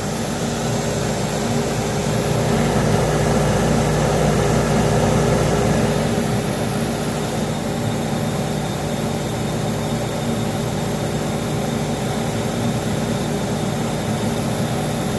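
1980s Kenmore dehumidifier running steadily, its fan and compressor giving a constant low hum and whoosh of air, slightly louder a few seconds in. The unit is working normally and cooling its coil toward dripping condensate.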